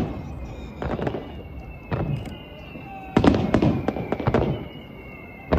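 Aerial firework shells bursting: single booms about a second apart, then a rapid run of many bangs a little past the middle, as the colored senrin-giku (thousand-ring chrysanthemum) shell's many small bursts go off, and another boom near the end. A thin whistling tone sounds between the bangs.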